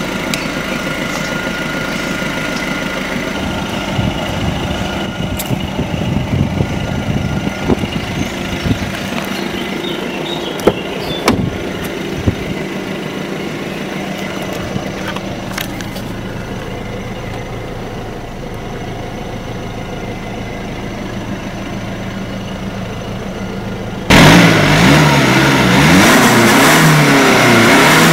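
Alfa Romeo Giulia's 2.2 JTD four-cylinder turbodiesel idling steadily, with a few sharp clicks about halfway through. Near the end it cuts abruptly to a much louder take of the engine being revved, its pitch rising and falling.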